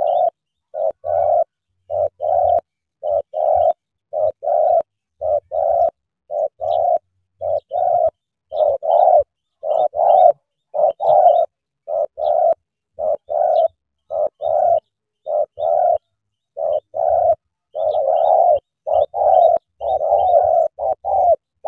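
Spotted dove cooing: short coos, mostly in pairs, repeated about once a second without a break. Faint high chirps of small birds sound behind them.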